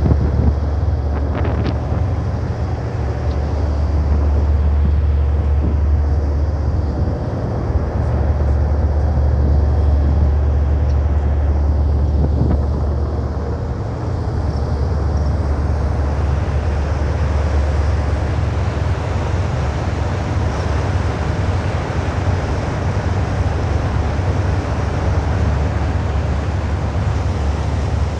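Sea truck motor boat's engine running steadily under way, a heavy low drone that swells and eases slightly, with wind buffeting the microphone.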